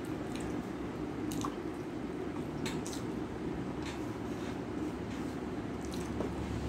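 Close-up eating sounds: cooked rice and spinach squished together by hand on a steel plate and chewed, with a few short wet clicks and smacks scattered through, over a steady low hum.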